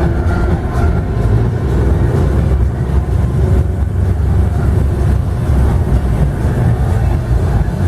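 Loud, bass-heavy dance music played over a sound system, in an instrumental stretch without vocals, with the deep booming low end dominating.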